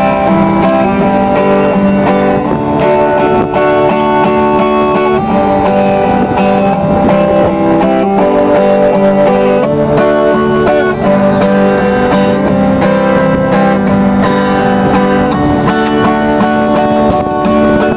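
Acoustic guitar being strummed and picked close by, a run of held chords that change every second or so.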